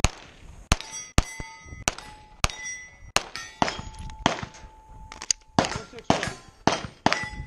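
A rapid string of pistol shots fired at steel plates. After many of the shots the struck steel rings on with clear, lingering tones.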